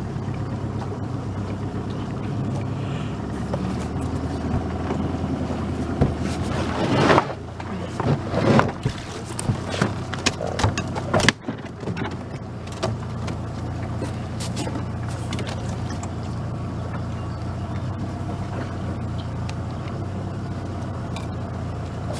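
Boat motor running steadily at low speed, a constant low hum. About six to eleven seconds in, a cluster of sharp knocks and clatters is heard while a catfish is hauled in on a line.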